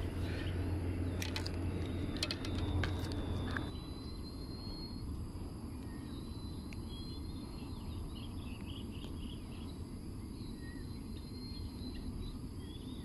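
Clicks and knocks of a clear plastic tackle box being set down and handled during the first three seconds or so, over a low rumble. Then quieter outdoor ambience, with short bird chirps near the middle and a thin, steady high insect tone.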